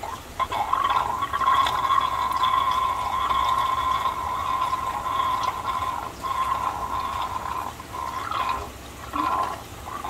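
Water running steadily with a high ringing note through it, breaking off briefly a few times near the end.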